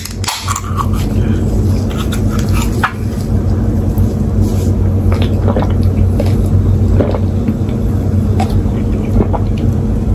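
A can of Hoegaarden Peach is opened with a click of its tab near the start, then drunk from: a few soft gulps and swallows over a steady low hum.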